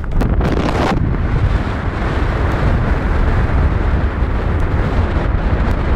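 Strong mountain wind buffeting the camera's microphone: a loud, steady, deep rumble.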